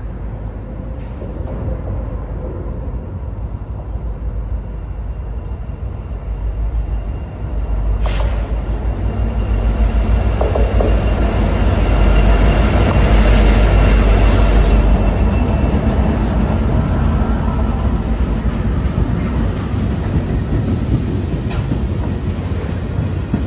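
Diesel-hauled freight train led by a Union Pacific locomotive approaching and running past under a highway overpass: a heavy low rumble that builds to its loudest as the locomotives pass about halfway through, then the rolling of the cars. A thin, high, steady wheel squeal rings over it while the locomotives go by.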